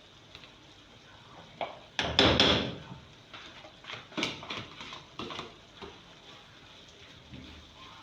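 Spoon knocking and scraping against a cooking pot while stirring the thickened chicken pie filling, a loud clatter of knocks about two seconds in and a few lighter knocks later.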